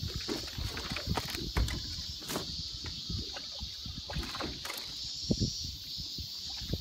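Water lapping and knocking irregularly against a small fishing boat's hull, with scattered low thuds and a few sharper clicks, over a steady high hiss.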